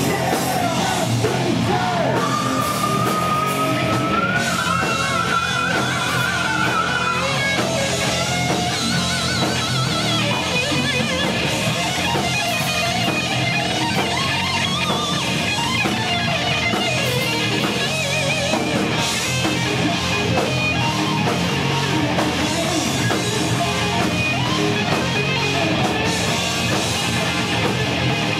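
Live heavy metal band: a distorted electric guitar plays a lead solo over the drum kit, with a long note bent upward and held with vibrato a few seconds in, then fast wavering lines.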